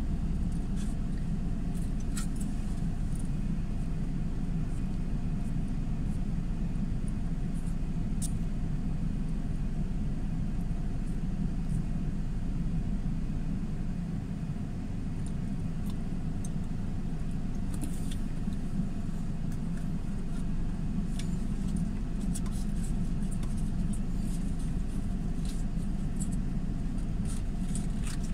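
Steady low rumble of car noise, with a few faint clicks and ticks scattered through it.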